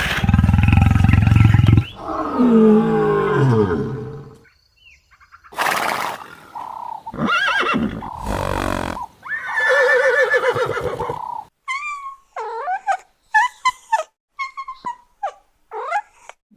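A series of different animal calls in turn: several long, loud pitched calls, some falling in pitch, followed near the end by a run of short, high chirps.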